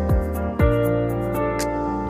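Background music: held chords with two deep drum beats and light, regular high ticking percussion.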